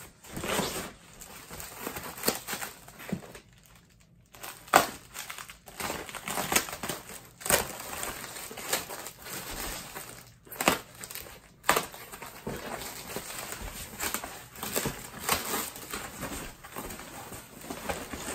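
Packing material being crinkled and pulled away from an exhaust part during unpacking: irregular rustling with several sharper crackles.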